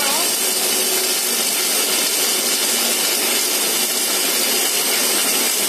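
Steady, even hiss of an inside-diameter submerged arc welding head at work inside a spiral pipe.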